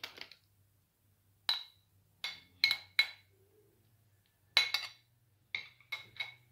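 A metal spoon clinking and scraping against a white ceramic plate as diced tomato is spooned off it, about ten sharp, ringing clinks at irregular intervals.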